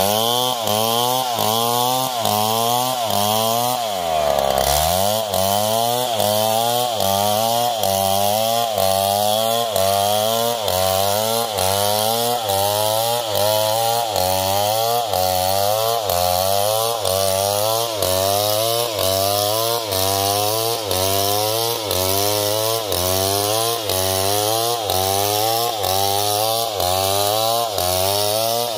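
Stihl MS070 chainsaw's big single-cylinder two-stroke engine running hard while ripping a log lengthwise into boards. Its pitch dips and climbs back in an even rhythm, about three times every two seconds, and around four seconds in it bogs down deeply under load before picking back up.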